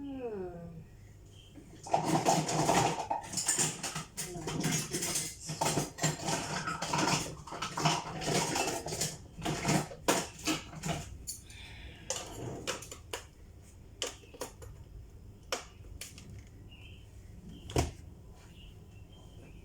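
Kitchen bowls and utensils clattering as they are handled: dense rattling and knocking for several seconds, then sparse single clicks and taps.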